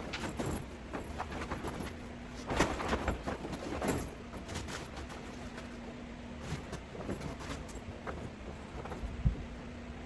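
Handling noises of grow-tent assembly: irregular rustling of the tent fabric with scattered light clicks and clinks of the metal frame poles, busiest a few seconds in.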